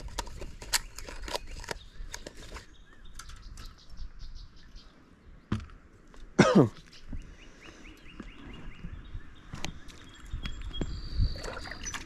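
Rustling and clicking of handling on a bank of dry leaves and sticks, with one loud short squeak falling steeply in pitch about six and a half seconds in. Faint bird chirps near the end.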